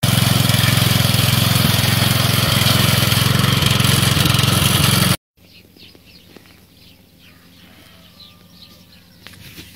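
Small petrol engine of a homemade walk-behind tractor running loud and steady while it works the soil, cutting off abruptly about five seconds in. After that, only faint outdoor background with a few soft chirps.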